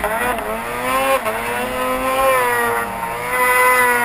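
Arctic Cat M8 snowmobile's 800 cc two-stroke twin engine under throttle in deep powder, revs dipping briefly soon after the start, climbing after about a second and then holding high with a small sag near the end.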